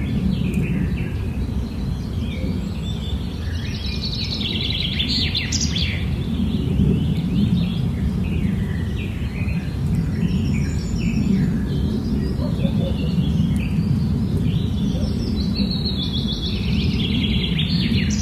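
Small birds chirping and twittering in many short, quick calls, busiest twice, over a steady low background rumble.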